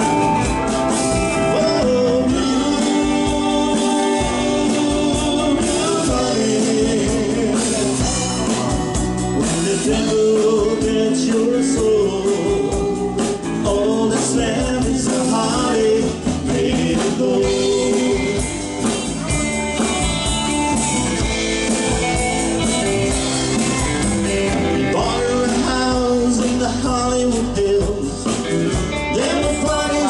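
Live country band playing on stage: drum kit, electric and acoustic guitars, bass and keyboard, with a steady beat.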